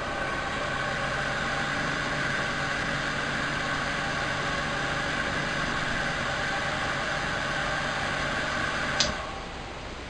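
Vintage beehive stand-up hair dryer running, its fan motor giving a steady hum and whir of air. About nine seconds in there is a click and the sound dies away.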